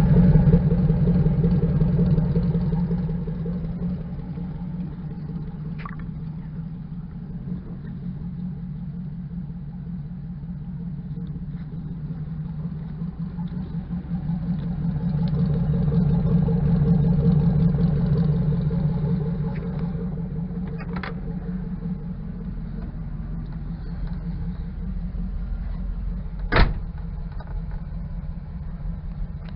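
Chevrolet 5.3-litre V8 in a 1972 Chevy truck idling steadily while warming up after a cold start. It swells louder for a few seconds at the start and again around the middle, and a single sharp click sounds a few seconds before the end.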